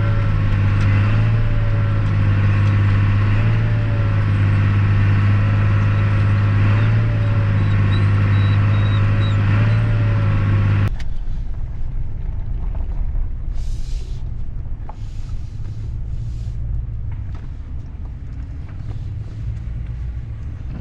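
Vehicle engine running steadily under load, heard from inside the cab. About eleven seconds in, it drops suddenly to a quieter low rumble with a few short hisses.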